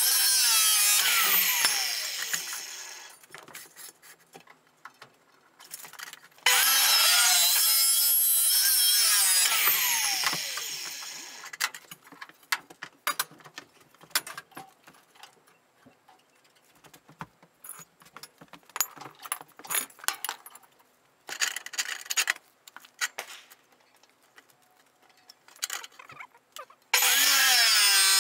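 Abrasive cut-off saw (chop saw) grinding through steel rectangular tube. One cut ends about a second in, a second runs from about six to ten seconds, and a third starts near the end. After each cut the motor winds down in a falling whine, and between cuts there are scattered knocks and clicks.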